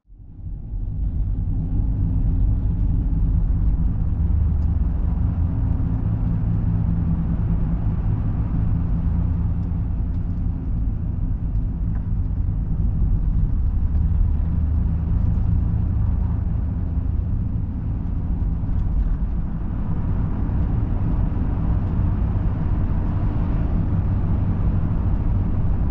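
Engine and road noise inside a moving van: a steady low drone with a constant engine hum.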